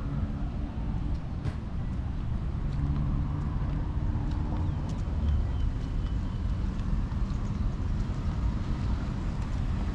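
Steady low engine hum of motor traffic, its pitch shifting now and then as vehicles pass.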